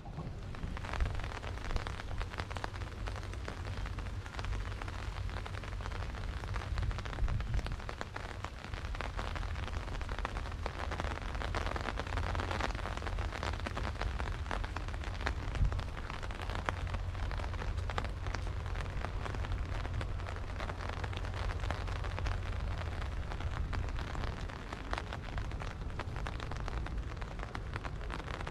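Steady rain falling, a dense patter of drops over a low rumble.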